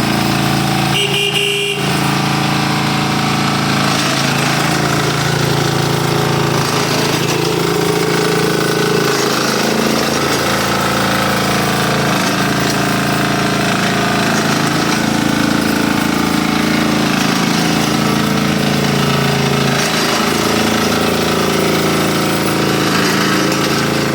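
7.5 hp single-cylinder diesel rotary tiller running hard and steadily, its knocking engine note rising and falling a little as the load changes.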